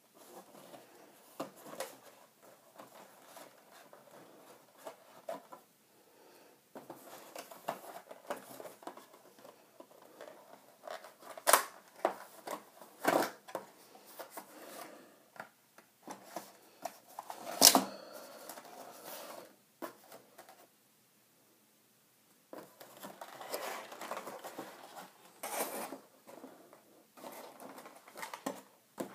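Packaging being handled and opened: irregular rustling and tearing with scattered sharp clicks and knocks, the loudest knock about eighteen seconds in, and a brief lull a little after twenty seconds.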